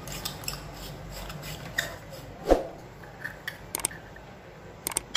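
Plastic housing and circuit board of a compact fluorescent bulb being handled and fitted together: scattered light clicks, with one louder knock about two and a half seconds in and a few sharp clicks near the end.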